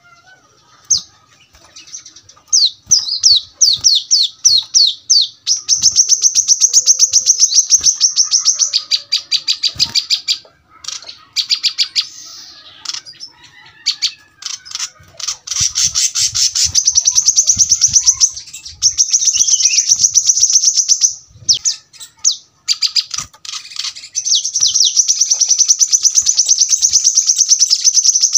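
Brown-throated sunbird (kolibri kelapa) singing: long runs of rapid, high-pitched notes repeated in quick succession, broken by a few short pauses.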